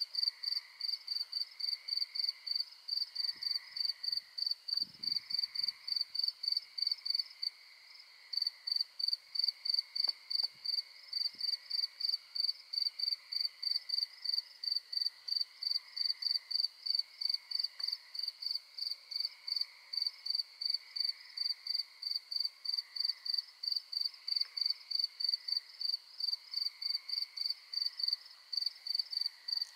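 Cricket chirping in a steady, even rhythm, about three high chirps a second, breaking off briefly about eight seconds in, over a softer, wavering chorus of night insects.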